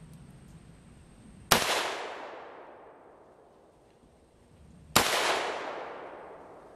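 Two rifle shots from a custom-built AR-15 in .300 Blackout firing hand-loaded rounds, about three and a half seconds apart. Each sharp crack is followed by an echo that dies away over a second or so.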